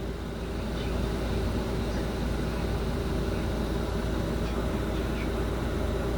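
Steady low machine hum with a few held tones, running evenly throughout.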